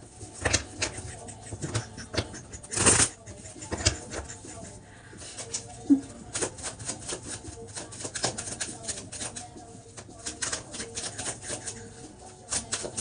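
Tarot cards being gathered off a table and then shuffled by hand: sliding and flicking card sounds with one louder swish about three seconds in, turning into a rapid run of small clicks and flutters in the second half.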